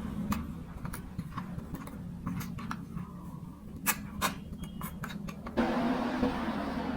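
Hard plastic marble-run pieces clicking and clacking irregularly, with two louder clacks about four seconds in. A little before the end a steady rattling noise sets in.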